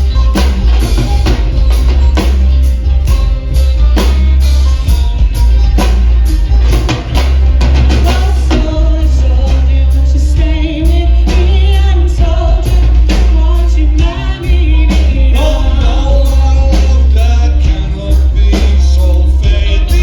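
Live folk-rock band with a drum kit playing a steady beat over heavy bass. A voice starts singing about eight seconds in.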